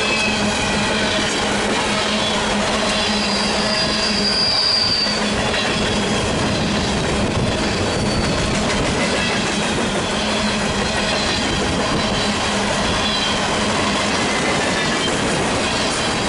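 BNSF coal train's freight cars rolling past close by: a steady, loud rumble of steel wheels on the rails. High wheel squeal rings out about three to five seconds in, with fainter squeals later.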